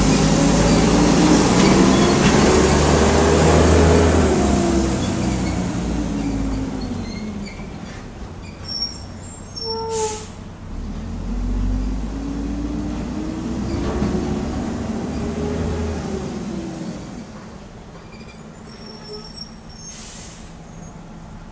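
Diesel engine of a front-loader garbage truck revving up and back down twice. The engine is loud at first and grows fainter as the truck drives away. There is a brief sharp sound about ten seconds in.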